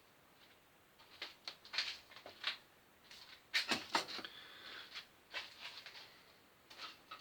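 Scattered light clicks and knocks of tools and parts being handled at a lathe that has stopped, with a louder clatter about three and a half to four seconds in.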